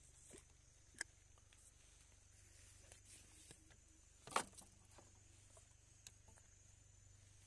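Near silence with a steady low hum and a few scattered faint clicks, and one sharper knock about four and a half seconds in.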